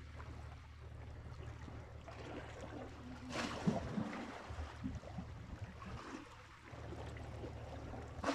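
Small sea waves lapping at a rocky shore, over a steady low rumble that drops out for a few seconds midway. There is one brief louder rustle about three and a half seconds in.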